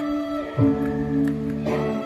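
Background music: held chords on a plucked-string instrument, a new chord struck about every second.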